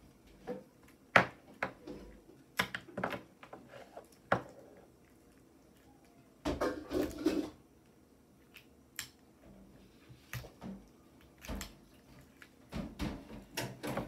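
A small plastic lighter handled and clicked in the hands: a scattered series of sharp clicks and taps, with a short stretch of rubbing and fumbling about halfway through.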